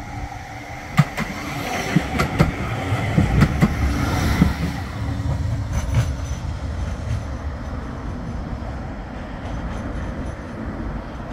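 Bombardier Flexity 2 tram approaching and passing close by, its wheels giving a series of sharp clicks on the track as it goes past. It then runs away with a steady rumble that slowly fades.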